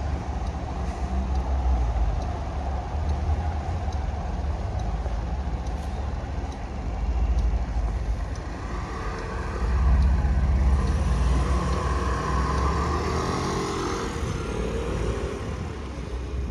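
City street traffic with a steady low rumble. A vehicle passes close, loudest about ten seconds in, its whine gliding in pitch as it goes by.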